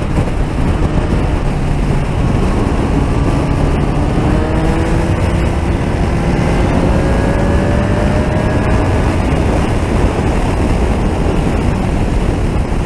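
Motorcycle at highway speed: heavy wind rush on the microphone over the engine's steady drone, which climbs slowly in pitch through the middle as the bike gathers speed.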